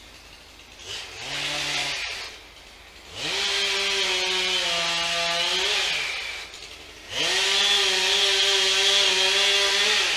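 Chainsaw engine revving in three bursts: a short one, then two longer runs of about three seconds each. In each the pitch climbs quickly, holds high, and falls away as the throttle is released.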